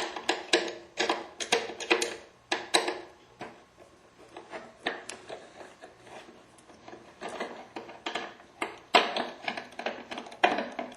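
Small Phillips screwdriver clicking and scraping against the tiny screws on either side of a Fleck 5600 water-softener valve's timer motor as they are backed out. The sound is an irregular run of small metallic clicks and taps, in clusters with a sparser stretch midway.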